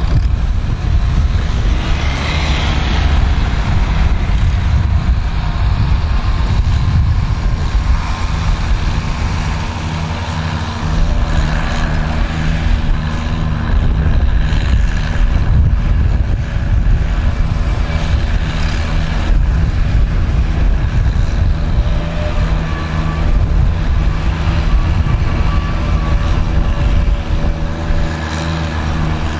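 Green Oliver tractor's engine running steadily under load as it pulls a plow through a field.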